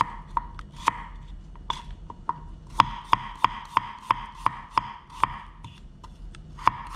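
Chef's knife slicing garlic cloves on a wooden cutting board: the blade knocks on the board about three times a second, with a couple of short pauses.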